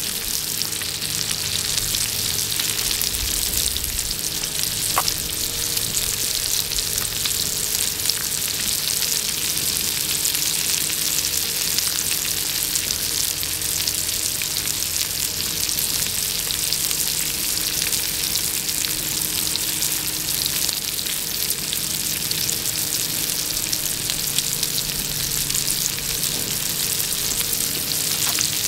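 Whole shrimp frying in hot oil in a pan, with asparagus in a cast-iron pan alongside: a steady sizzle full of fine crackles.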